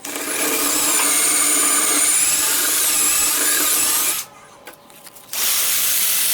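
Electric power tool running for about four seconds with a wavering high-pitched whine, stopping, then starting again about a second later with a hissier sound.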